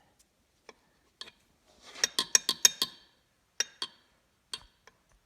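Small metal parts clinking and tapping together: a few single clicks, a quick run of about six clinks about two seconds in, then a few more single clicks.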